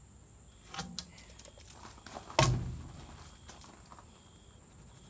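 Handling sounds of marking a wooden 2x4: a few light clicks and taps, with one sharp knock about two and a half seconds in as a tool or the board is set down.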